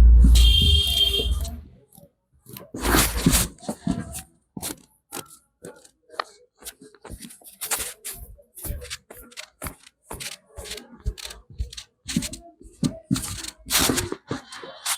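Barber's hands slapping and tapping during a head massage: an uneven run of sharp slaps and pats. It opens with a heavy thud and a short shrill tone, and a brief shrill tone comes back at the very end.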